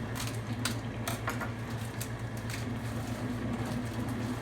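Dishwasher running with a steady low hum, and a few light clicks and taps in the first second and a half.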